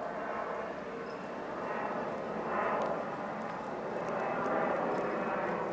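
A steady, distant engine drone, swelling a little in the middle.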